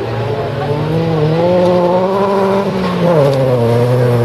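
Folkrace cars' engines running hard on a gravel track. One engine climbs in pitch about a second in, holds, then drops back at about three seconds as the driver lifts off, over the steady sound of the other cars' engines.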